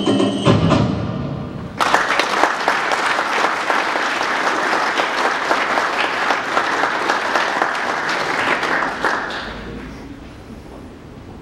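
Music stops about half a second in, then an audience applauds for several seconds, the clapping fading away near the end.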